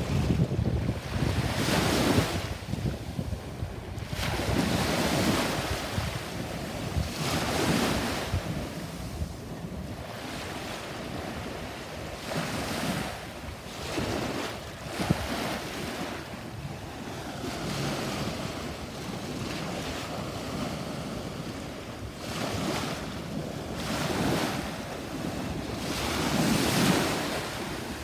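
Small sea waves breaking and washing up a sandy shore, the surf swelling and fading every few seconds, with wind buffeting the microphone.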